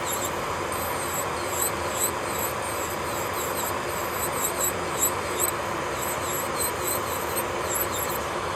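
Electric nail drill running steadily with a faint whine, its bit grinding on the nail with quick, irregular high squeaks.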